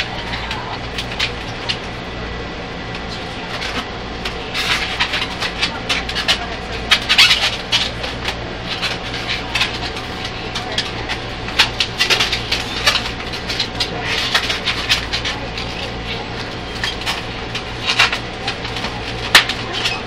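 Long latex modelling balloons squeaking and rubbing against each other in fits as they are twisted together into a balloon hat, the squeaks sharpest about a third of the way in and near the end. Under it runs the steady low hum of the train carriage.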